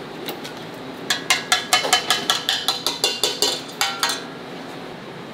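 Metal kitchenware clinking: a utensil strikes a metal pot or bowl in a quick run of ringing clinks, about five a second, for some three seconds.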